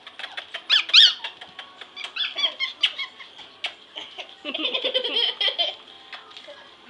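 Pomeranian puppies whining and yipping in short, high squeals that bend in pitch, loudest about a second in, with a girl giggling about two-thirds of the way through.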